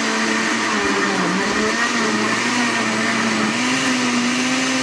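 Britânia countertop blender running steadily, chopping firm pineapple chunks with no water added. Its motor pitch dips briefly about a second in, then steps up slightly near the end.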